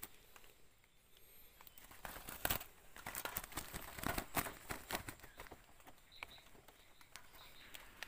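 Rustling and crackling of dry leaf litter and a wire-mesh bird trap being handled by hand, with a run of sharp clicks and rattles in the middle.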